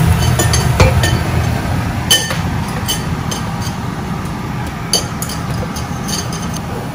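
Scattered light clicks and clinks of kitchen cookware, a few with a short metallic ring, over a steady low hum.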